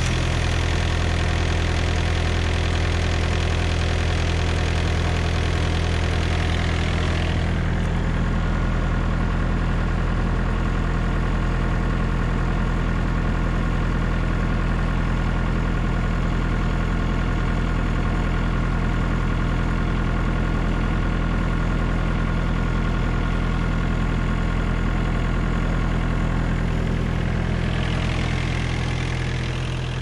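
Diesel engine of a Thermo King SLX-200 trailer refrigeration unit running steadily at idle just after starting. Its note changes slightly about seven seconds in, and the sound fades near the end.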